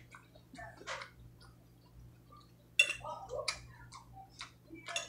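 Close-up eating sounds: chewing and lip smacks on a mouthful of salad, with a metal fork clicking and scraping against a plate. The clicks are scattered and irregular, with a sharper one about three seconds in.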